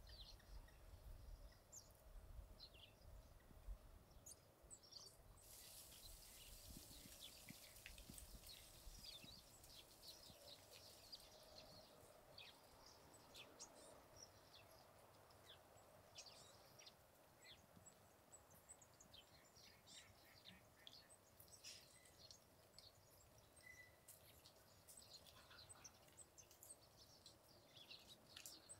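Near silence: faint outdoor garden ambience with scattered small-bird chirps, and a low rumble of wind in the first several seconds.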